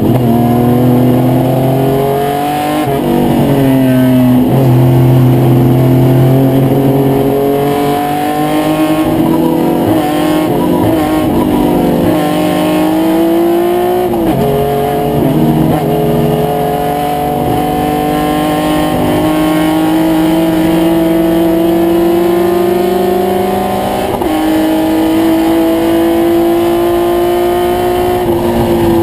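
1972 Triumph GT6 race car's two-litre straight-six engine under hard racing load, heard from inside the cockpit. The note climbs steadily as it pulls and falls sharply a few times along the way.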